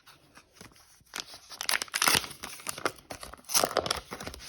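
A trading card pack's plastic wrapper crinkling and being torn open by hand, in irregular crackling bursts starting about a second in.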